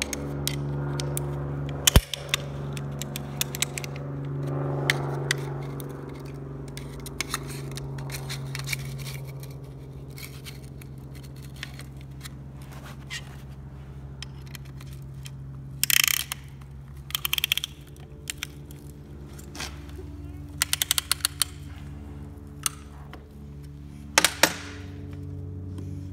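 Piston ring compressor band being put on a piston and tightened with its ratchet key: a sharp metal knock about two seconds in, then several quick bursts of clicking from the ratchet, over a steady low hum.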